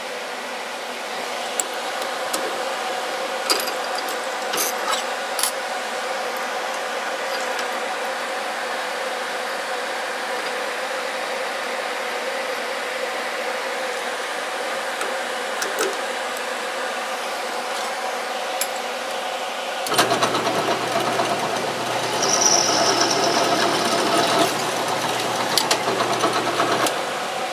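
Shop blower fan humming steadily while a bit is changed in a drill press chuck, with scattered light metal clicks and taps. About twenty seconds in, the drill press motor starts, runs for about seven seconds with the new bit, then stops.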